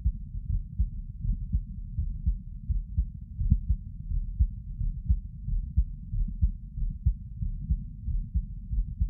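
Human heartbeat recorded at close range while the person is sitting: a steady, regular rhythm of low, dull thumps.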